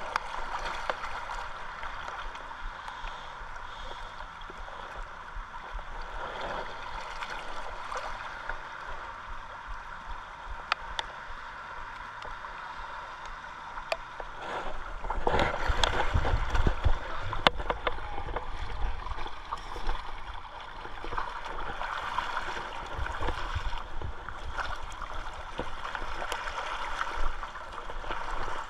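Fast river current rushing and gurgling around a wading angler, with a few sharp clicks. A louder stretch of splashing and low rumble comes about halfway through.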